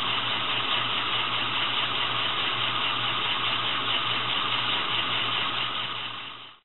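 Accucraft gauge 1 Baldwin 4-4-0 live steam locomotive running on rollers: a steady hiss of steam with a mechanical whirr and a low hum, fading out near the end.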